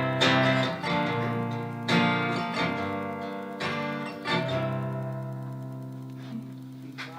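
Acoustic guitar playing the closing chords of a song: a few strums, then a final chord left to ring and fade away.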